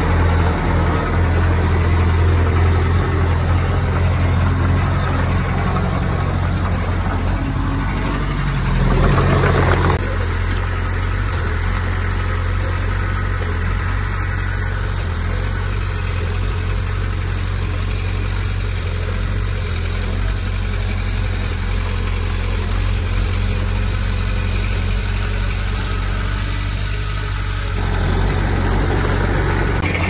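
Komatsu D20P bulldozer's diesel engine running steadily, with a brief swell in level about nine seconds in. The sound shifts abruptly about ten seconds in and again near the end.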